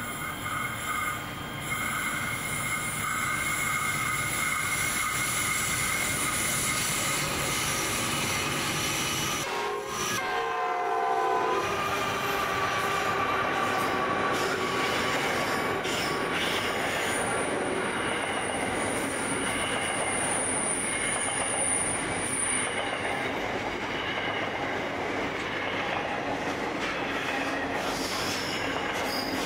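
Pacific National container freight train passing behind NR-class diesel-electric locomotives. About ten seconds in, a horn sounds briefly as the locomotives go by, its pitch falling. Then comes the steady rolling of the container wagons on the rails, with a high wheel squeal for a few seconds past the middle.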